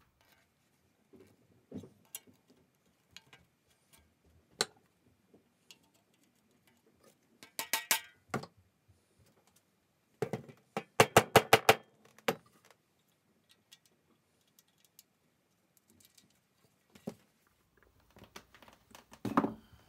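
Hand tools and small metal saw parts being handled and set down on a workbench: scattered clicks and taps, with two quick runs of clinking in the middle, the second one the loudest, and a softer clatter near the end.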